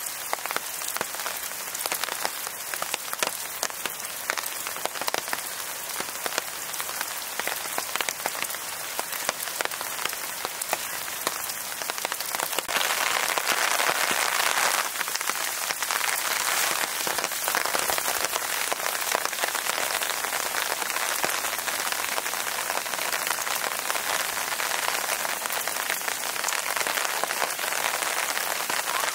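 Steady rainfall, with many individual drops ticking close by. It grows heavier about twelve seconds in and stays louder.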